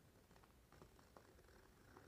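Near silence, with a few faint scratches of a pencil sketching.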